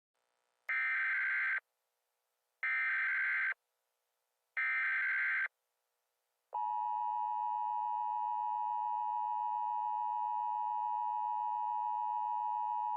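Emergency Alert System tones: three buzzy bursts of about a second each, the SAME digital header, then about six and a half seconds in the steady two-tone EAS attention signal starts and holds.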